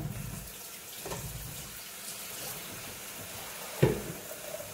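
Pancake batter sizzling on an electric griddle as a steady soft hiss, with a single knock near the end.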